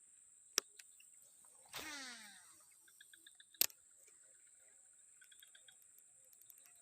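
Steady high-pitched insect drone, broken by two sharp clicks and a short whine falling in pitch about two seconds in.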